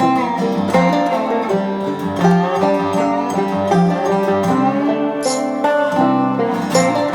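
Background music: an upbeat tune on plucked string instruments such as banjo and guitar, with quickly changing notes.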